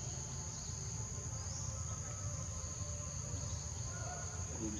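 Insects droning in a steady high-pitched chorus, over a low rumble.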